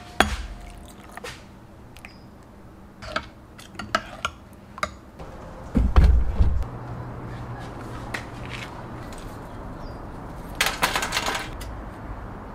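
Scattered clinks and knocks of kitchenware: a metal spoon, a ceramic bowl and a pot. About six seconds in comes one heavy low thump, then a steady low hum, and near the end a short rattling clatter.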